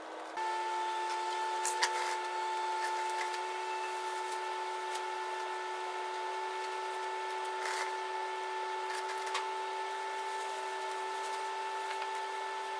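Power sander running at a steady pitch, sanding the forklift's painted bodywork, with a constant whine over a hiss and a few faint clicks.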